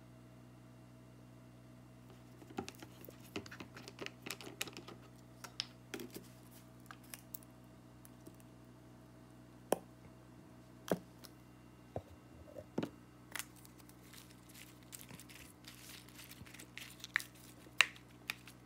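Scattered light clicks, taps and crinkling from a plastic salad dressing bottle being handled and poured over a salad, and a plastic fork tossing the leaves on a paper plate. The handling starts a couple of seconds in.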